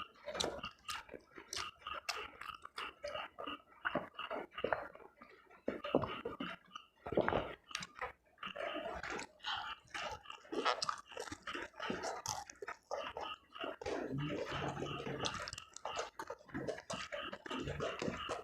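A person chewing food, with quick, irregular wet smacks and clicks of the mouth.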